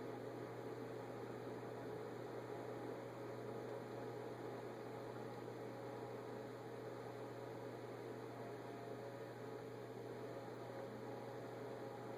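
Faint steady low electrical hum with a light hiss underneath; no distinct events.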